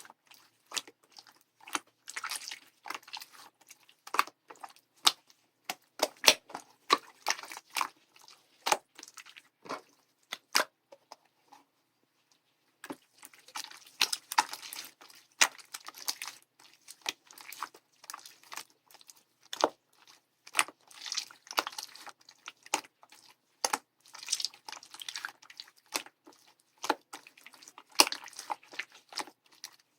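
Slime being squished and kneaded by hand, giving runs of sticky clicks and pops, broken by a pause of about two seconds near the middle.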